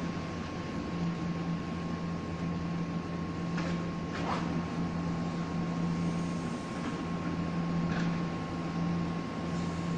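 A Taiwan Railway electric multiple-unit train standing at the platform, its on-board air-conditioning and electrical equipment giving a steady hum with a constant low tone and a thin higher tone. A few short faint squeaks come about four seconds in and again near eight seconds.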